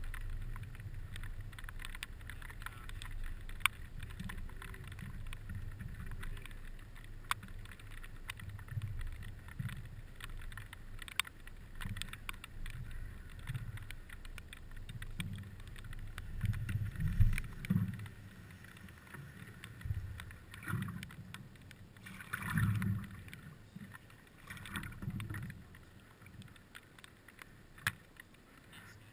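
Water lapping and sloshing against a stand-up paddleboard, heard from the board's nose, with a few louder swishes of water in the second half and scattered sharp clicks.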